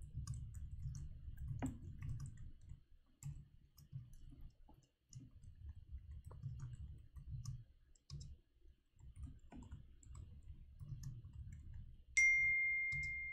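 Computer keyboard typing: irregular key clicks and taps. About twelve seconds in, a single message-notification chime from the Mac rings out and slowly fades.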